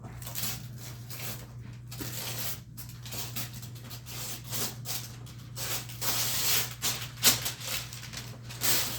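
Wrapping paper and tape rustling and tearing as a present is unwrapped, in irregular bursts that grow busier in the second half, with one sharp rip about seven seconds in.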